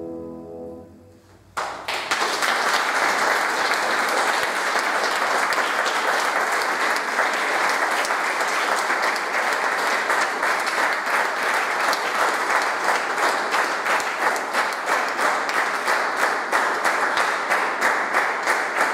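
The final piano chord dies away, then an audience bursts into applause about a second and a half in. The clapping carries on and falls into a steady rhythmic beat near the end.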